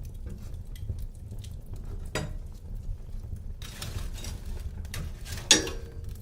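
Wood fire burning in a fireplace: a steady low rumble with frequent small crackles, a louder pop about two seconds in, a brief hiss, and a sharp snap near the end, the loudest sound.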